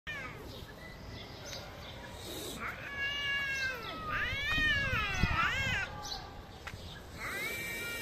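Cat yowling in long, drawn-out calls. A held call comes about three seconds in, a wavering call rising and falling in pitch follows around four to six seconds, and another starts near the end. A brief low thump sounds just after five seconds.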